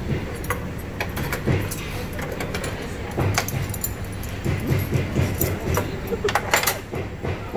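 Metal cutlery clinking against plates and bowls in scattered light taps, with a quick cluster of clinks near the end, over a steady low room hum and faint murmuring voices.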